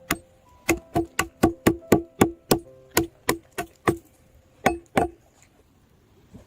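A tool striking wood in a quick series of about fifteen sharp knocks, roughly three a second, each with a short hollow ring; the knocking stops about five seconds in.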